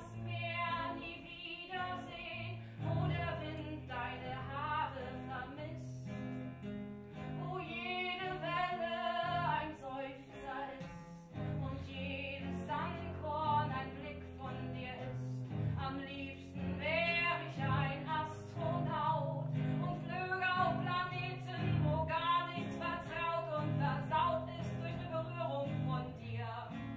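A woman singing a song into a microphone over instrumental accompaniment with a low bass line.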